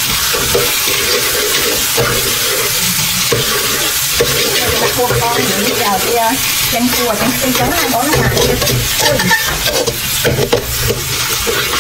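Metal spatula stirring and scraping minced garlic around a steel wok, with the hot oil sizzling steadily.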